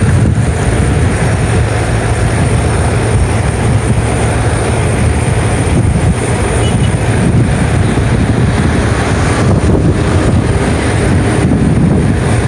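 Steady, loud low rumble with a hiss above it, unbroken and without a clear rhythm or pitch: outdoor background noise on a phone microphone.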